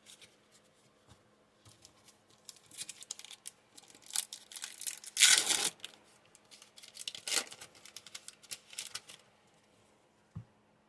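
Foil wrapper of a Yu-Gi-Oh! booster pack being torn open and crinkled in bursts, with the loudest rip about five seconds in; it quietens near the end, with one soft thump.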